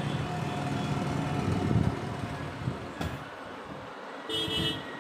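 Vehicle engine running in the background, with a brief horn toot about four and a half seconds in and a sharp click just before it.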